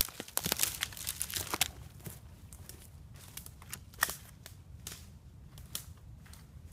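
Footsteps crunching over dry forest floor, a dense run of crackles for the first second and a half or so, then only a few scattered crackles.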